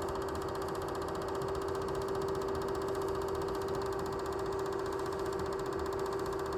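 Super 8 film projector running: a fast, even mechanical clatter over a steady hum.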